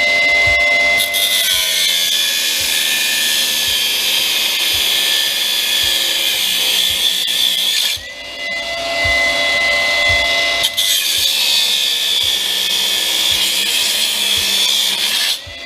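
High-speed rotary cutting tool grinding through the steel of a windshield wiper motor assembly. It makes a loud hissing grind for about six seconds, spins free with a steady high whine for about three seconds, then grinds again for about four seconds before it is lifted off near the end, still whining.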